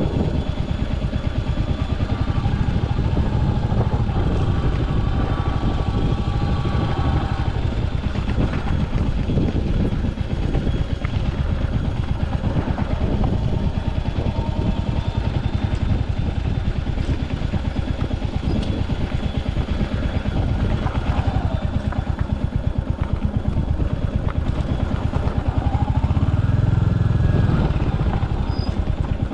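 Royal Enfield Hunter 350's single-cylinder engine running with a rapid, even pulse as the motorcycle is ridden off-road, swelling louder for a moment about three seconds before the end.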